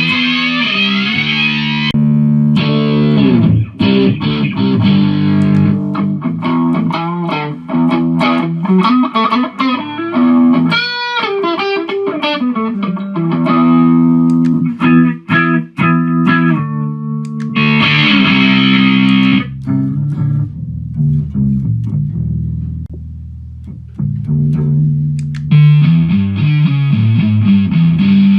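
Jackson electric guitar played through a Mooer GE150 multi-effects unit: single-note lead lines with sustained notes and a string bend near the middle, alternating with heavily distorted passages at the start, about two-thirds in, and near the end.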